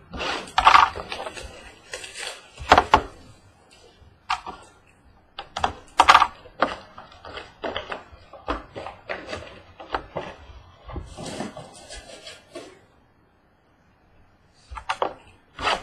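Irregular clicks, knocks and rustling of objects being handled on a tabletop, with a brief pause near the end.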